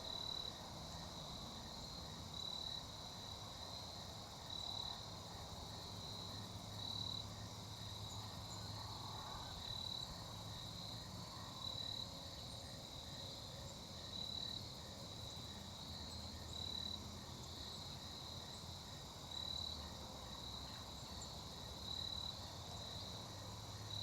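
Crickets chirping in a steady, pulsing trill, with a faint low hum underneath and soft swells in the background every two to three seconds.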